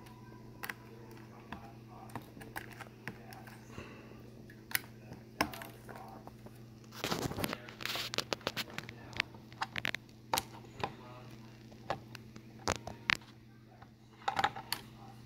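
Hands working the plastic body shell of a small RC crawler truck: scattered clicks, taps and rustles as the body clips are pulled and the shell is handled, with a busier run of clicking about seven seconds in. A steady low hum runs underneath.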